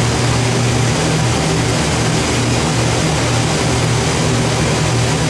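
Twin engines of a Wellcraft 3300 Martinique cruiser running steadily under way, a constant low drone over a steady rushing noise.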